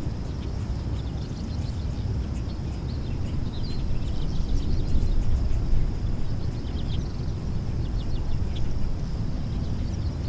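Outdoor ambience: small birds chirping many times over a steady high-pitched drone, with a low steady rumble underneath.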